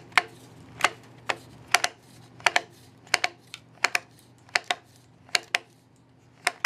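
Shindaiwa Speed-Feed 400 trimmer head clicking as its halves are twisted against each other to reel trimmer line onto the spool. The sharp clicks come singly or in pairs, about one every 0.7 seconds.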